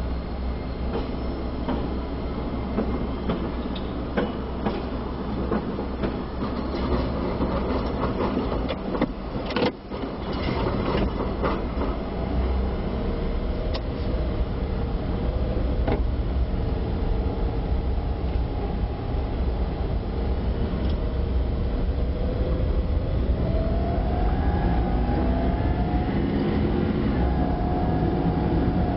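A streetcar running on its rails: a steady low rumble with sharp clicks in the first half. Later, a motor whine that rises and falls in pitch.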